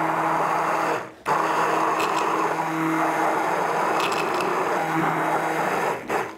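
Handheld immersion (stick) blender running in a glass jar, a steady motor whir as it emulsifies egg and oil into homemade mayonnaise. It cuts out briefly about a second in, starts again, and stops near the end.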